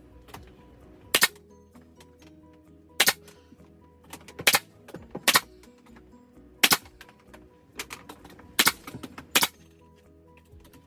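Nail gun firing about seven single sharp shots, one every one to two seconds, fastening a wooden screen frame, over background music.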